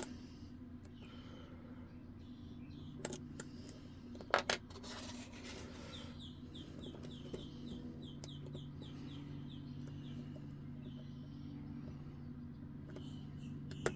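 Faint clicks and scrapes of lock picks working in a pin-tumbler lock cylinder, with two sharper clicks a few seconds in. Over a steady low hum, a run of about a dozen short, evenly spaced high chirps comes midway.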